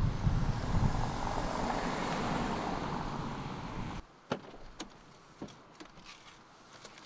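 A steady rushing noise with a low rumble, which cuts off suddenly about four seconds in. Then come a few sharp clicks as a car door is unlatched and swung open.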